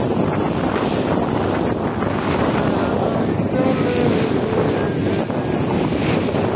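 Wind buffeting the microphone aboard a motor vessel at sea, over the steady low running of the vessel's engine and water washing past the hull.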